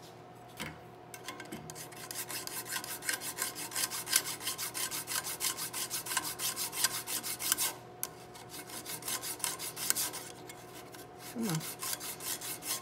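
An 8-inch mill file is stroked rapidly back and forth over a metal underlug on a rifle barrel, filing the lug flush with the barrel. It makes a quick run of scraping strokes that stops briefly near the middle and again for a second or two near the end before starting again.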